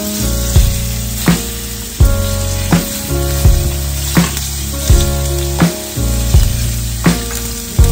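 Short pork spareribs sizzling as they fry in hot oil, turned with a wooden spatula, under background music with a steady beat.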